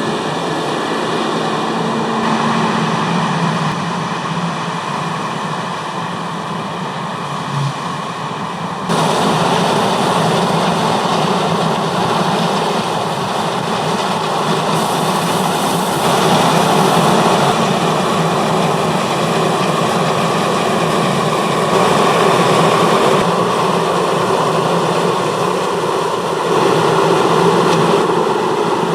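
Heavy harvest machinery running steadily, a continuous engine din. The level and tone shift suddenly several times, as the shots change.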